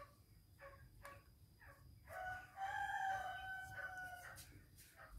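A rooster crowing once: one long held call of about two seconds, starting about two seconds in. Before it come short faint peeps about every half second.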